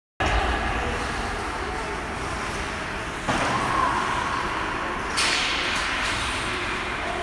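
Ice hockey rink ambience during play: skates on the ice and a general murmur in the arena. There is a sharp knock about three seconds in, and a burst of high hiss about five seconds in.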